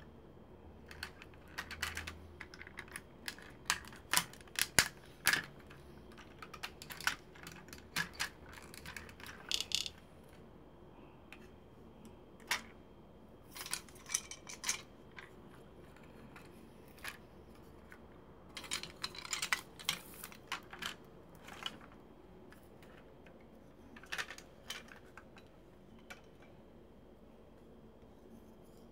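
Hard plastic parts of a large vintage Transformers toy clicking and clacking as they are handled and transformed. The sharp clicks and knocks come irregularly, in clusters with quiet gaps between.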